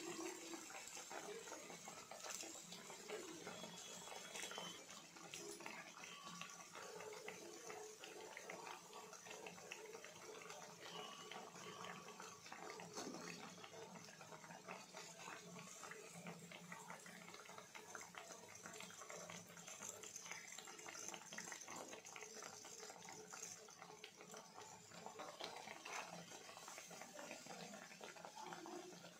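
Chana dal vadas deep-frying in hot oil in a kadai: a steady, quiet sizzle with fine crackling as moisture boils out of the batter.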